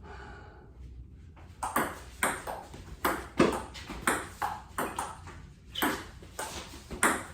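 Table tennis rally: the celluloid ball ticking sharply off the paddles and the table, a quick alternating run of clicks about two a second that starts about a second and a half in with the serve.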